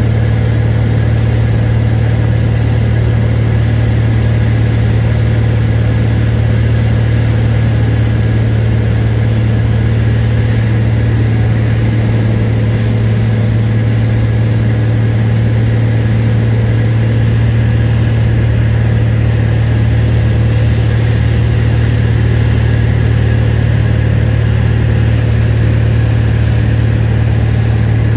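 Steady cabin drone of a Cessna 182 Skylane's six-cylinder piston engine and propeller in level flight: a strong low hum with a wide rushing noise above it, unchanging throughout.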